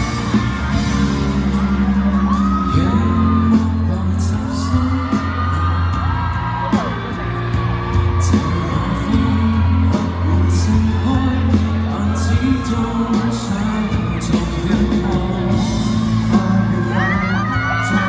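Live pop band music with bass and drums, with fans in the audience screaming and whooping over it, loudest near the end.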